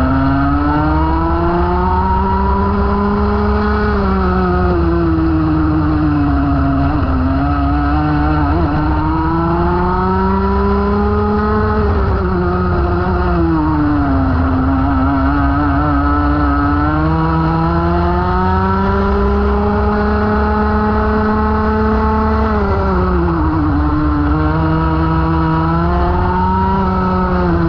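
Rotax Max 125 cc two-stroke kart engine at race pace, heard from the kart itself: its pitch climbs through each straight and drops off under braking into the corners, three times over. A steady low rumble runs beneath.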